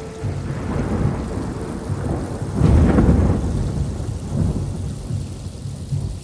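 Thunder rolling over steady rain. The rumble swells to its loudest about three seconds in, then fades back into the rain.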